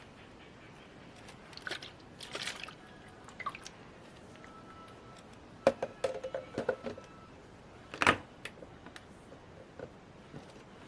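Handling noises: a few light clicks and rustles, then a clattering knock with a brief ring about six seconds in and a sharper, louder knock about eight seconds in.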